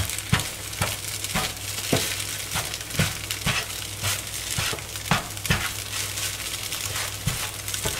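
Spatula edges chopping a Kaiserschmarrn pancake into pieces in a non-stick frying pan, knocking irregularly on the pan bottom about twice a second, over a steady sizzle of the pancake frying.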